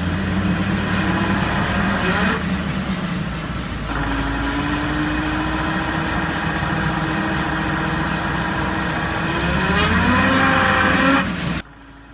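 Worn differential whining while the vehicle drives, the pitted faces of its gear teeth giving a steady whine over road and engine noise. The whine rises in pitch near the end as speed increases, then cuts off.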